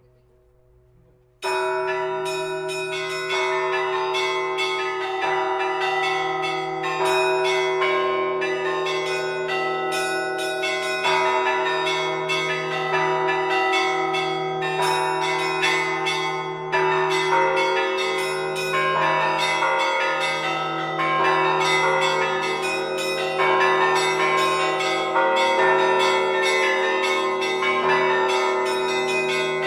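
Several church bells ringing together in a continuous peal, struck several times a second with overlapping ringing tones. They start abruptly about a second and a half in, after a faint fading tone.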